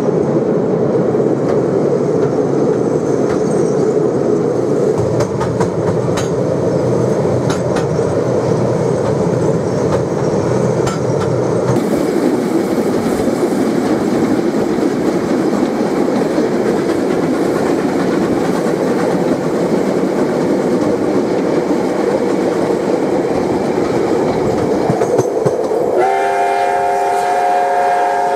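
Steady running noise of the Ab-class steam train Ab608 under way. About 26 s in, the locomotive's steam whistle starts a long blast of several tones sounding together, dipping slightly in pitch near the end.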